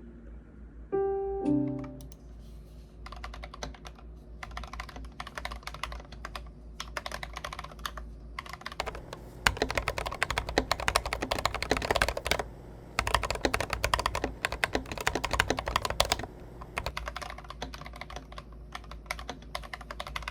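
Typing on a Monstargear Ninja87 PRO mechanical keyboard fitted with AKKO CS Rose Red linear switches and XDA PBT keycaps: a stream of key clacks that speeds into fast runs of keystrokes about halfway through, then slows again near the end. A few short piano notes sound about a second in.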